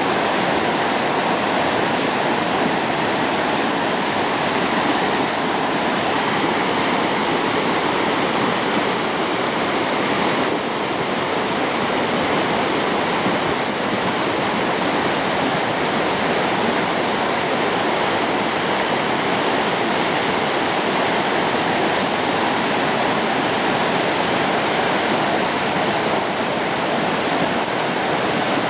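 Swollen, rising river rushing past in full flow: a steady, unbroken noise of turbulent water.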